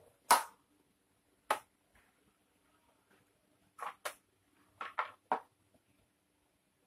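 Hard hollow plastic tricycle parts knocking and clattering against each other and a tiled floor as they are handled: a loud knock at the start, another about a second later, then a cluster of five quicker knocks past the middle.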